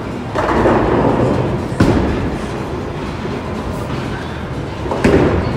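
Bowling alley din of balls rolling and pins being knocked down on nearby lanes: a rumbling clatter in the first two seconds, a sharp crack about two seconds in, and another crack near the end.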